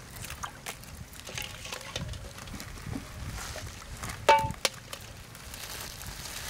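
Hands peeling boiled eggs in a basin of water: small clicks of shell breaking away and soft splashes of water. About four seconds in, a single sharp clink with a brief ring is the loudest sound.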